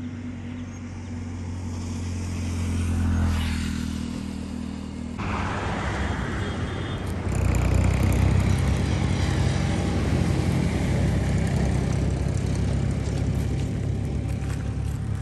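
Highway traffic: a passing vehicle's hum swells to a peak about three seconds in and fades. After a sudden change about five seconds in, a louder steady rumble of traffic.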